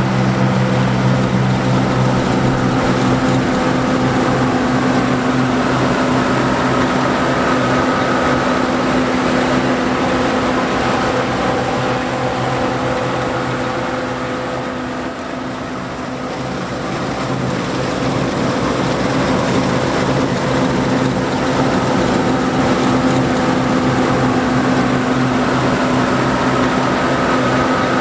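John Deere 4425 combine harvesting wheat: its engine and threshing machinery run steadily at constant speed. The sound fades somewhat about halfway through and comes back up.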